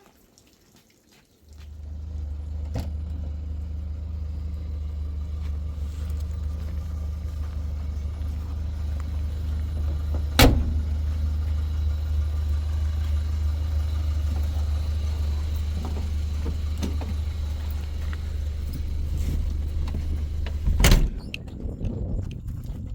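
A steady low rumble that starts suddenly a second or two in and stops abruptly near the end with a loud knock, with another sharp knock about midway.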